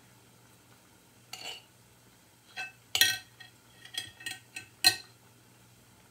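A handful of short clinks and taps of a metal spoon and hands against a glass mixing bowl holding mashed ripe plantain dough, as the dough is scooped out. The loudest clink comes about three seconds in.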